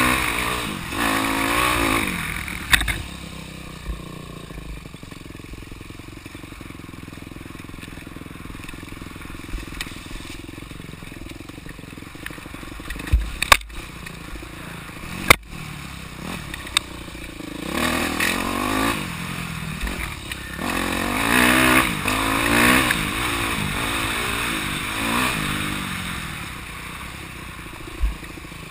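Dirt bike engine revving up and easing off as the bike is ridden along a trail. The engine is loud at first, then runs quieter and steadier through the middle, where two sharp knocks come close together. It picks up again with rising and falling revs in the second half.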